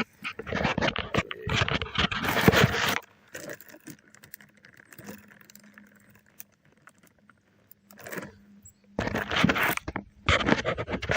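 Close rustling, scraping and jangling handling noise, in two bouts: one over the first three seconds and one starting about nine seconds in, with a quiet stretch between.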